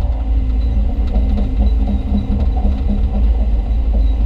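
Hyundai Robex 220-9A LC excavator's diesel engine and hydraulics running steadily, heard from inside the cab as a deep, loud rumble.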